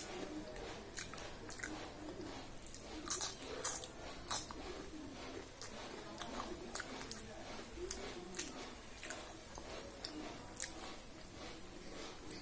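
Close-up chewing and mouth sounds of someone eating millet khichdi by hand, with fingers scraping and gathering food on a steel plate. Irregular small clicks and smacks, a few louder ones about three to four seconds in.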